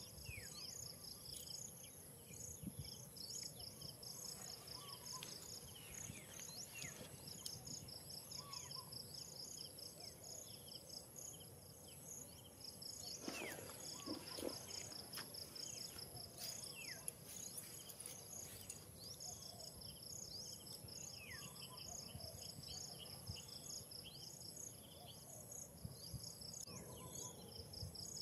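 Outdoor ambience of insects chirping in rapid pulsing trains over a steady high-pitched insect whine, with occasional short bird calls and one brief louder noise about halfway through.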